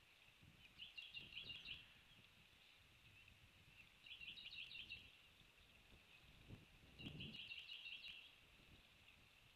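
Faint bird calls: a short trill of rapid high chirps, repeated three times about three seconds apart, over a faint low rustling.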